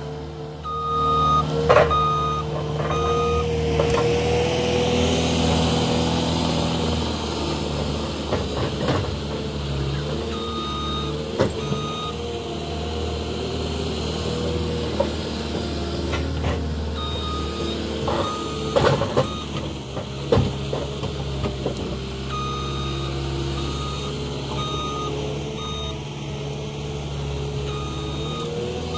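Cat 289D compact track loader's diesel engine running under load, with its backup alarm beeping in several spells as it reverses. A few sharp knocks and clanks from the machine working the logs come through now and then.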